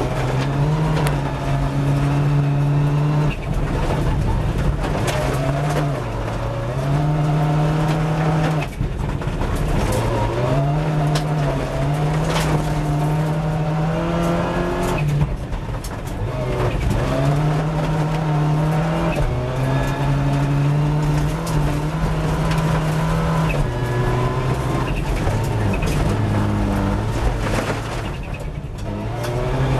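Rally car engine heard from inside the cockpit, driven hard at high revs. The pitch climbs, holds for a few seconds, then drops at each gear change, again and again. Short knocks and clatters come in now and then from the car running over gravel.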